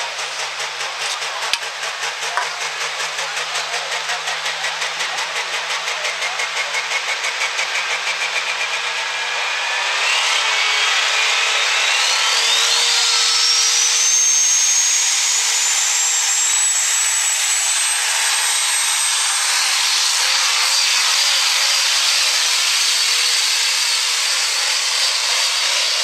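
Super stock diesel pickup truck engine running with an even pulsing and a faint whine. About ten seconds in it comes up to full power and gets louder, and its turbocharger whine climbs steadily to a very high pitch over the next several seconds as the truck pulls the sled down the track.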